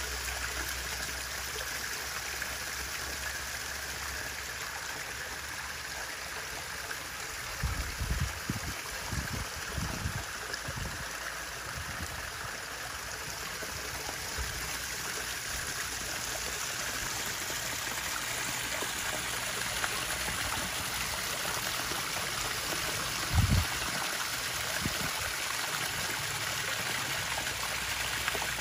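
Pond water trickling and running steadily. A few short, dull low thumps break in about eight to eleven seconds in, and one louder one comes later.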